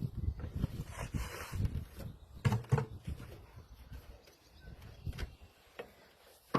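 Irregular clunks and knocks of metal parts being loosened and handled on a Reed LOVA gunite machine during teardown, with two sharper knocks about two and a half seconds in.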